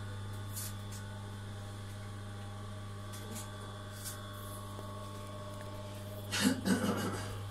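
Steady low electric hum of an industrial sewing machine's motor running idle, with a few faint soft clicks. Near the end comes a louder rustling, clattering burst of about a second.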